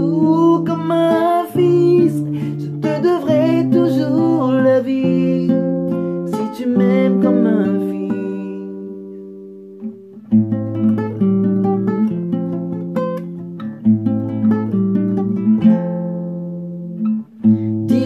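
Acoustic guitar playing a slow chord progression, with wordless singing over it in the first half. The chords ring out and fade about eight seconds in, then the strumming picks up again about two seconds later.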